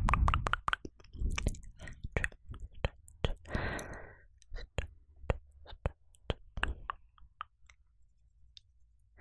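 Close-miked dry mouth sounds: irregular tongue clicks and lip smacks, with a short breathy whisper about three and a half seconds in. A low muffled bump against the microphone comes right at the start.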